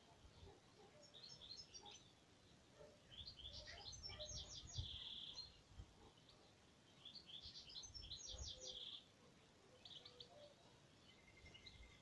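A bird singing faintly: quick phrases of rapid high chirping notes that end in a short trill, two longer phrases about four and eight seconds in, with shorter snatches between.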